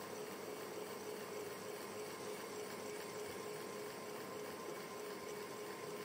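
Electric fan running steadily: an even rush of moving air with a steady hum under it.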